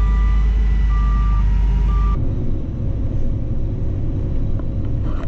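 A heavy farm vehicle's reversing alarm beeping about once a second over its running diesel engine. About two seconds in, the sound cuts to a steady engine rumble without beeps.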